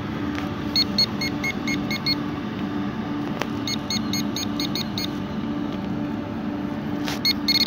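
GP-Pointer metal-detecting pinpointer beeping in short, rapid bursts as its tip is pushed through loose soil, signalling metal close by: one burst about a second in, another around four seconds, and a faster run near the end.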